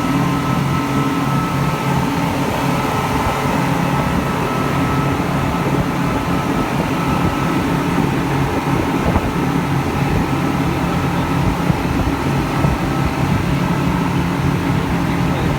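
Speedboat engines running steadily, a constant low drone.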